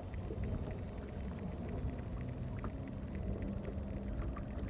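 Wind buffeting the microphone on an open boat, a steady low rumble, with a faint quick ticking running through it.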